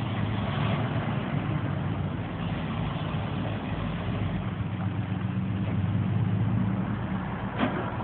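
Tow truck's engine idling steadily, with a short sharp click near the end.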